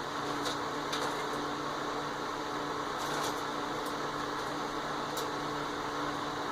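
Homemade wood lathe running with a steady hum, sanding a spinning maple bowl, with a few light ticks.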